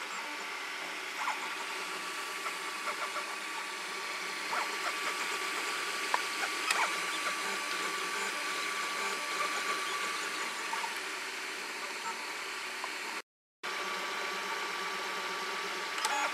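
Ord Bot 3D printer running a print, its stepper motors moving the print head and bed: a steady mechanical hum with one constant whine and scattered small ticks. The sound cuts out briefly about thirteen seconds in.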